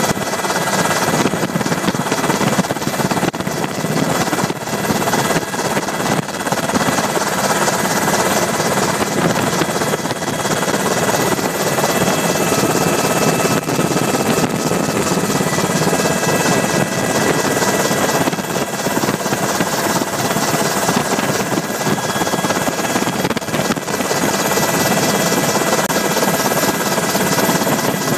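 UH-60 Black Hawk helicopter in flight, heard from inside the cabin: the twin turboshaft engines and rotors make a loud, steady din with several steady high whining tones through it.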